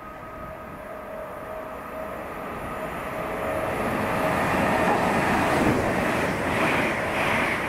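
A train approaching along the line, growing steadily louder, with a held tone under a rising rush of wheel and rail noise that fills out over the last few seconds.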